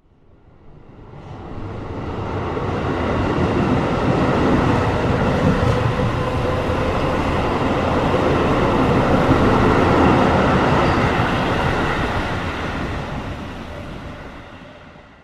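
A train running on rails, a dense rumble with faint steady tones above it. It builds up from silence over the first few seconds, holds loud through the middle, and dies away near the end.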